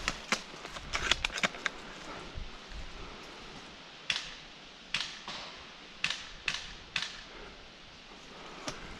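Airsoft guns firing in woodland: a series of sharp cracks that fade out quickly, a quick cluster about a second in, then single shots roughly every half second to a second from about four seconds in.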